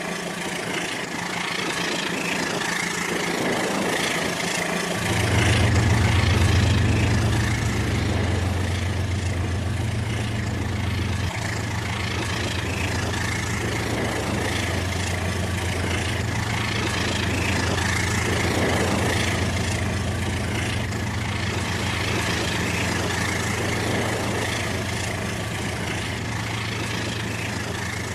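A battery-powered Rail King toy train's small electric motor running steadily along its track, with a constant whirring hum. About five seconds in, a deeper hum joins and then holds steady.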